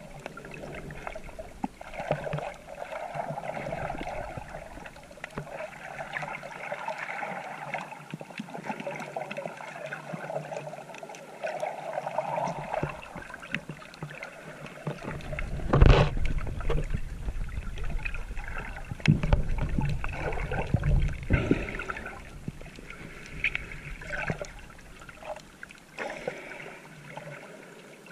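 Water sloshing and gurgling around a GoPro camera carried by a swimmer, heard through its waterproof housing. A heavy thump comes a little past halfway, followed by several low bumps and rumbles for a few seconds.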